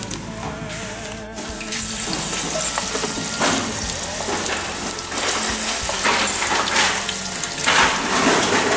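Small fish being stirred through wet flour batter with a spoon and fork in a stainless steel bowl: a wet stirring noise that starts about two seconds in and comes in surges, loudest near the end.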